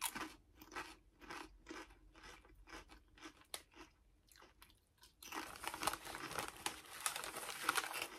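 Close-up crunching and chewing of Lay's Limón potato chips: separate crunches at first, then a louder, dense stretch of crunching from about five seconds in as a fresh chip is bitten.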